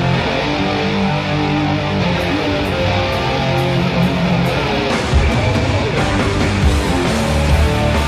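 Live hard-rock band playing: electric guitar over bass and drums, with cymbal hits starting about two seconds in. About five seconds in the bass and drums come in heavier and the sound fills out.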